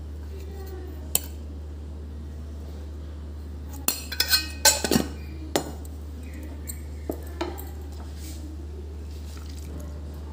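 Wooden spatula knocking and scraping against a glass mixing bowl while stirring rice flour into thick gram-flour batter: a handful of sharp clinks, most of them bunched around the middle, over a steady low hum.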